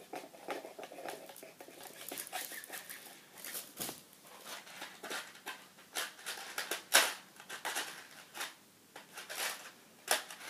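Scattered clicks, taps and rustles of lamp parts being handled and fitted together by hand, with the loudest knock about seven seconds in.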